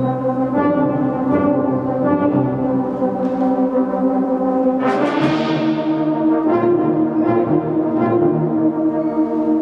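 Brass band playing sustained full chords, with a sudden crash about five seconds in that rings away.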